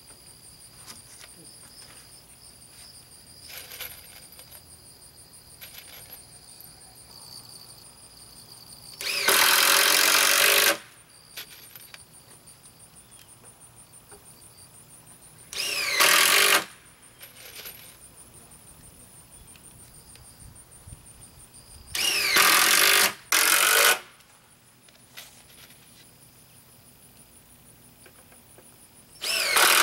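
Cordless drill run in five short bursts into a plywood panel, each one spinning up in pitch: the longest about nine seconds in, another around sixteen seconds, two close together after twenty-two seconds, and one at the very end. Crickets or other insects keep up a steady high buzz between the bursts.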